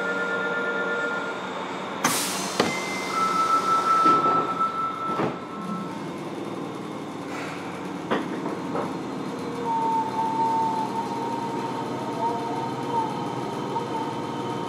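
Fukuoka City Subway 1000N series train heard from inside the car while running. A steady electric motor whine stops about a second in, then come a sharp crack and several knocks from the wheels and track over a steady running rumble, with tones rising and fading along the way.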